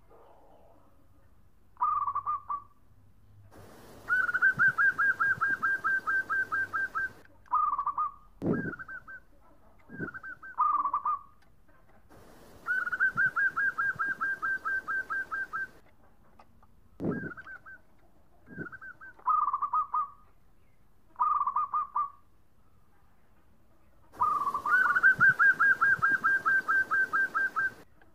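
Caged zebra dove (perkutut) cooing. Short phrases alternate with three longer runs of rapid staccato coo notes, about four a second, each run lasting around three seconds, and a few deep low notes follow some of the short phrases.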